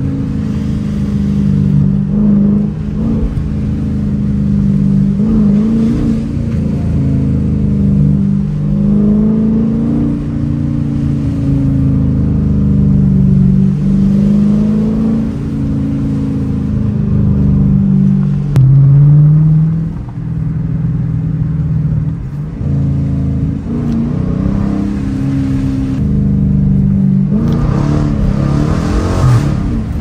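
Dodge Challenger R/T's HEMI V8 heard from inside the cabin while driving, its engine note rising and falling again and again with the throttle. It is loudest about two-thirds of the way through, and pulls harder near the end as the car speeds up.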